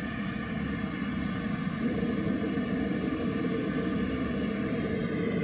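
Outdoor PA system of Atlas horn speakers playing with some of its EQ filters switched off, so the uncorrected sound comes back. About two seconds in, a steady band around 400 Hz comes up, leaving the sound heavy in the low mids.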